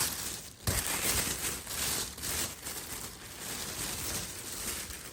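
Shopping bag rustling and crinkling as items are taken out of it, with a sharp rustle well under a second in, dying down near the end.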